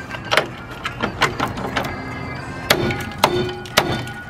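Hammer blows on the rusty steel of a pickup truck's frame and its bolted-on bracket, about six sharp strikes roughly half a second apart. The later blows carry a short metallic ring.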